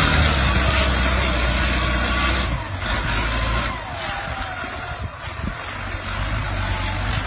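Heavy engine running steadily, with an abrupt change in its sound about two and a half seconds in.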